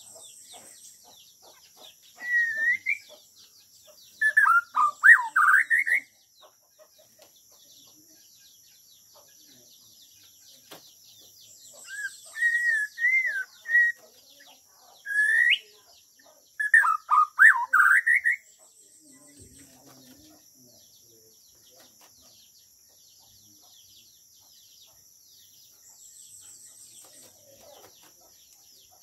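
Bornean white-rumped shama singing clear whistled phrases of quick rising and falling notes, in two spells: a few seconds in and again around the middle. A faint, steady, high-pitched whine runs behind it.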